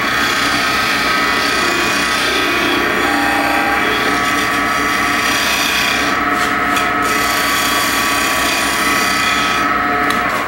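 A turning tool shear scraping the sides of a cocobolo piece spinning on a wood lathe: a steady rasping scrape of the tool edge on the wood over the lathe's running, stopping at the very end as the tool comes off.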